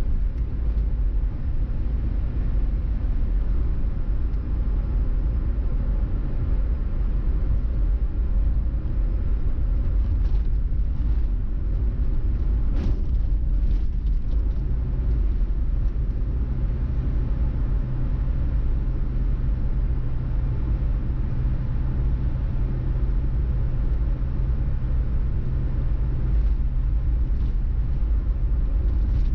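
Car driving along a road, heard from the car: a steady low rumble of engine and road noise that holds even throughout.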